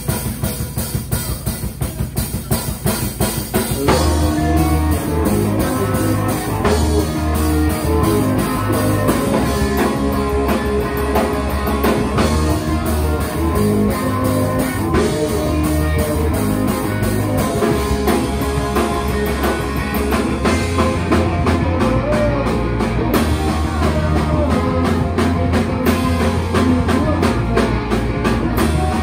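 A rock band playing live: drums alone for the first four seconds or so, then electric bass, electric guitar and a sung lead vocal come in over the beat.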